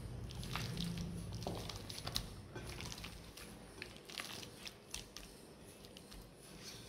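Chicken pieces being squished and turned by hand in a thick yogurt-and-spice marinade in a bowl: quiet, irregular wet clicks and squelches, growing sparser after a few seconds.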